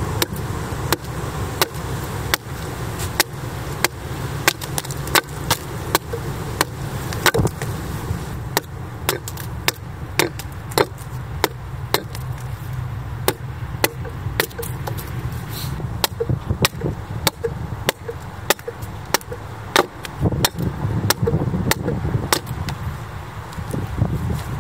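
Axe hewing the face of a split red oak board: a long series of sharp chopping strikes of the steel blade into the wood, about one to two a second, coming faster in the middle.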